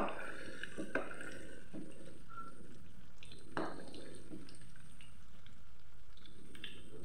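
Battered cempedak fritters deep-frying in hot oil in a wok: a steady sizzle, with a few sharp clicks from the spatula moving the pieces.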